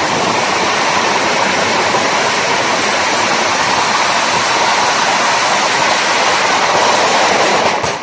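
A long string of Chinese firecrackers going off in a dense, unbroken crackle of rapid bangs, which stops abruptly near the end.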